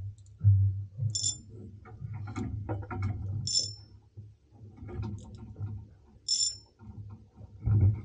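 A short high-pitched beep, three times at intervals of two to three seconds, over low, uneven rumbling thumps.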